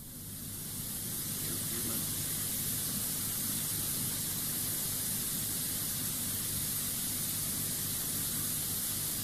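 Steady high hiss with a faint low hum underneath: the background noise of a played-back audio recording. It fades in from dead silence over about the first two seconds, then holds level.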